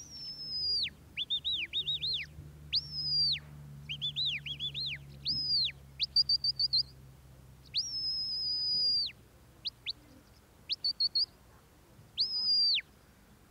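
A sheepdog handler's whistle giving a run of commands to a working Border Collie: long high held notes that drop away at the end, alternating with quick rising-and-falling warbles and short pips, with pauses between calls.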